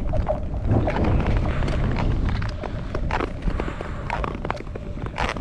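Nordic skates striding and gliding over thin first-season ice, with many sharp clicks and cracks from the new ice under the skater's weight. A low rumble under the first half eases after about two and a half seconds.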